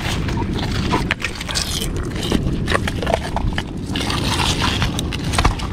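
Rocks and pebbles clicking, knocking and scraping against each other as stones are lifted and moved by hand, over a steady low rumble.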